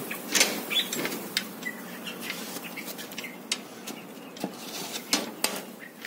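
Irregular knocks and clicks with a few short, high cheeps from broiler chicks.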